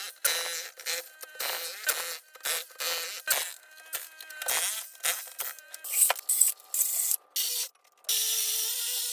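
Power tool buzzing at a high pitch while cutting and breaking up a concrete floor, heard in many short stretches that start and stop abruptly.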